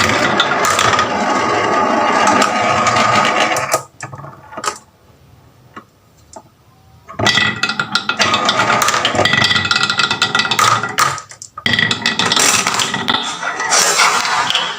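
Marbles rolling and clattering down a wooden marble run, a dense rattle of quick clicks in bursts, with a quieter lull about four to seven seconds in.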